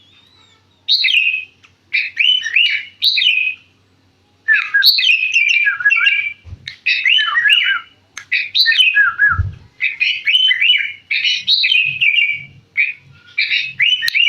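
Sooty-headed bulbul (kutilang) singing busily in short, bubbly whistled phrases repeated in quick bursts, with brief pauses about a second in and around four seconds in.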